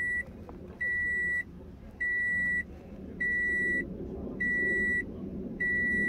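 A high, steady electronic beep repeating about every 1.2 seconds, each beep lasting a little over half a second. It comes while a new key sits in the ignition, switched off, during immobilizer key learning.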